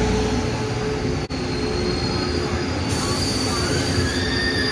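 Taiwan Railway PP push-pull Tze-Chiang express train rolling slowly into the platform, a steady rumble of wheels on rail. About three seconds in, a thin high-pitched squeal joins in as the train slows to stop.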